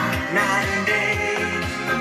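A pop song with a strong bass line playing through hi-fi loudspeakers driven by an Onkyo TX-7520 stereo receiver, heard in the room.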